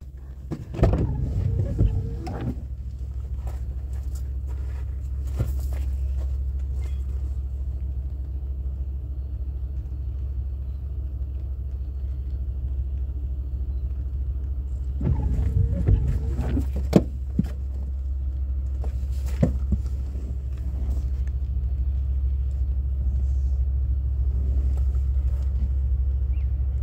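SCT diesel-electric freight locomotives running under load as the intermodal train pulls away, a deep steady rumble, with a couple of brief louder noises about a second in and again around the middle.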